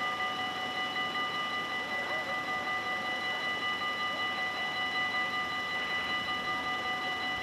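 Dutch level-crossing warning bells ringing without pause, a bright ringing of several steady tones with a slight even pulse. The crossing is closed with its lights flashing, the sign that a train is approaching.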